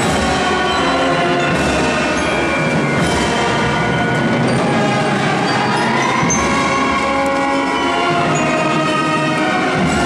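Brass band music with long held chords, the kind of band that plays procession marches in Guatemalan Holy Week.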